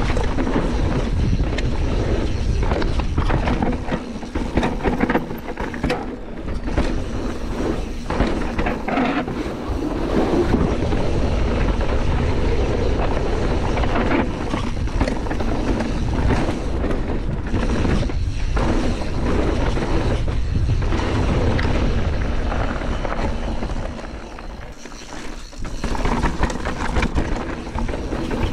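Canyon Torque CF 9 full-suspension mountain bike descending a dirt bike-park trail, heard from a chest-mounted camera: steady tyre and wind noise with constant rattling and frequent knocks as the bike takes bumps. The noise eases briefly about four seconds before the end, then picks up again.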